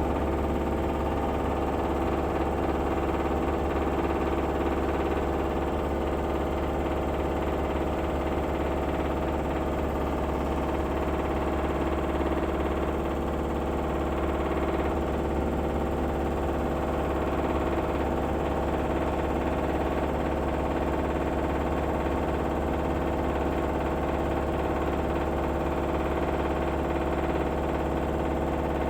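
LG front-loading washing machine spinning its drum at high speed, a steady whine of several held tones over a low hum.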